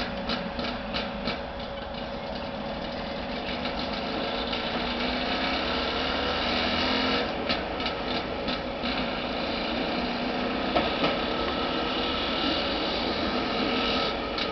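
Small motor rail trolley running along narrow-gauge track with a steady engine note, and runs of rapid, regular clicking near the start and again about halfway through.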